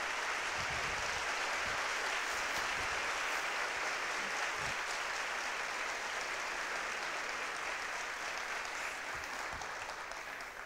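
Large seated audience applauding, a steady wash of clapping that dies away near the end.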